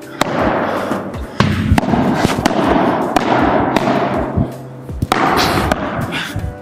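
Padel rally: the ball struck back and forth with padel rackets and bouncing on the court, a run of sharp hits less than a second apart.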